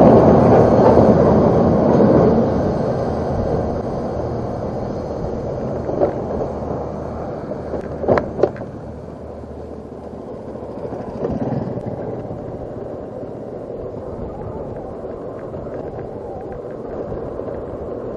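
A motor vehicle's noise fading away over about eight seconds, leaving a steady low rumble with wind on the microphone; a few sharp clicks come in the middle.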